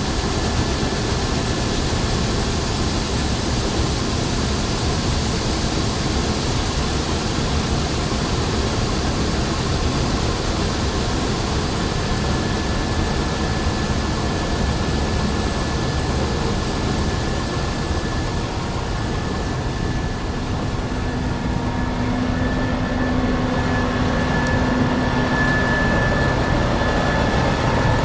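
Combine harvester running steadily while harvesting soybeans, a dense, even machine noise with a thin steady whine that comes in partway through and grows stronger near the end.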